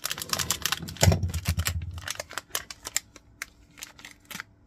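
Crinkly anti-static plastic bag being handled around a small circuit board: rapid crackles and clicks, thickest in the first couple of seconds and thinning out toward the end, with a dull thump about a second in.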